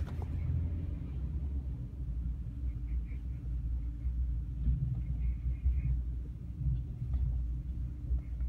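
Steady low rumble of a moving car heard from inside its cabin, the road and running gear noise of a car travelling behind a recovery truck.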